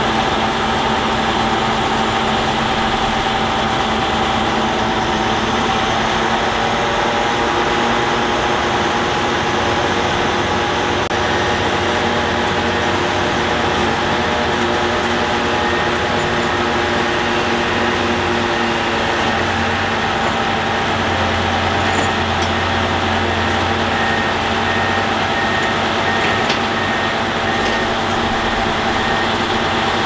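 Diesel engines of heavy earth-moving machinery, an excavator and bulldozers, running steadily under load. A repeating high beep comes in near the end.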